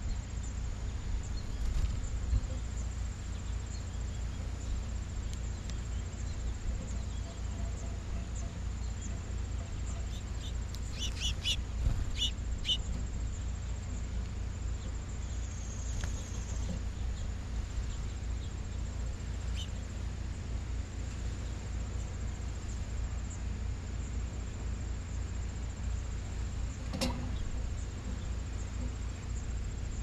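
Outdoor ambience at a bird feeder: a steady low rumble under a thin, steady high whine. A short run of small-bird chirps comes about a third of the way in, and a single sharp knock sounds near the end.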